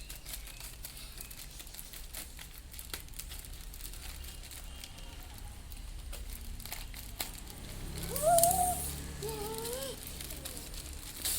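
Gift packaging crinkling and rustling as it is unwrapped by hand, with a louder ripping burst about eight seconds in.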